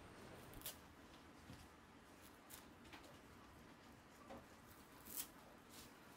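Dried pollack strips being torn apart by hand: faint, dry crackles and small snaps as the stiff fibres split, coming irregularly every half second to a second, the sharpest about five seconds in.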